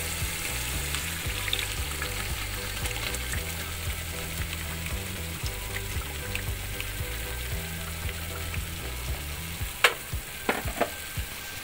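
Spice masala sizzling in hot oil in a pot as a yogurt and gram-flour (besan) batter is poured in over it, with a few sharp knocks of the wooden spatula against the pot near the end.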